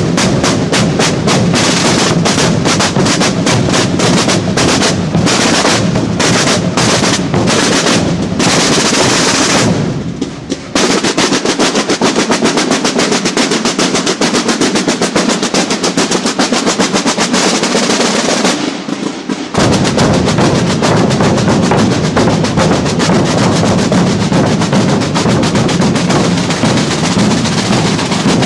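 A corps of rope-tensioned Holy Week processional drums played together in a marching rhythm, many sticks striking in a fast, dense pattern close to a roll. The playing thins briefly about ten seconds in and again near nineteen seconds.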